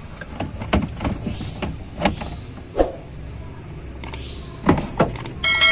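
Sharp plastic clicks and knocks from a dashboard speedometer cluster being handled and worked loose by hand. After about four seconds come a few quick clicks close together, and near the end a ringing bell-like ding, as from a subscribe-button sound effect.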